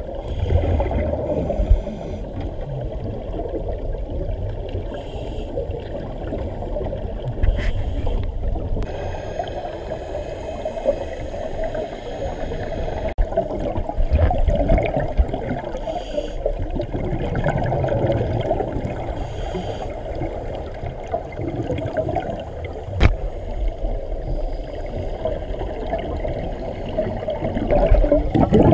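Underwater ambience picked up through a camera housing: a steady low rumble of water with the gurgle of scuba divers' exhaled bubbles every few seconds and a few sharp clicks.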